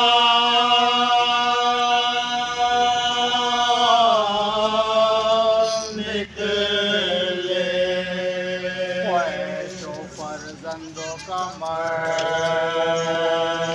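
Voices chanting a marsiya, a Shia Urdu elegy, in long drawn-out held notes, with short breaks between lines.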